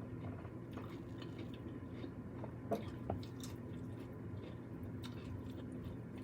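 Quiet chewing and mouth sounds of a person eating, with faint scattered clicks and two small smacks about three seconds in, over a low steady hum.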